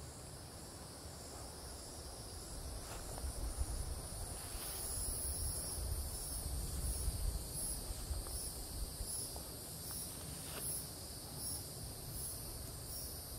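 Insect chorus buzzing steadily in high-pitched bands, settling into an even pulsing from about four and a half seconds in, over a faint low rumble.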